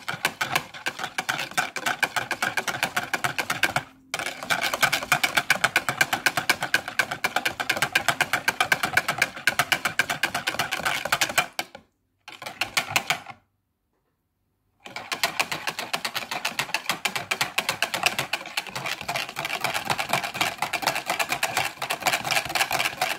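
Wire whisk beating instant chocolate pudding in a plastic bowl: a fast, steady rattle of the wires clicking against the bowl. It stops briefly a few seconds in and twice more a little past the middle.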